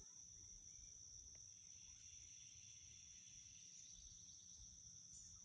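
Faint, steady, high-pitched chorus of insects such as crickets.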